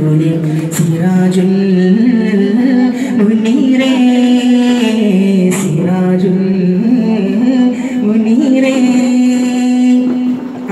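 A man singing a slow melody solo into a microphone, with ornamented turns and long held notes.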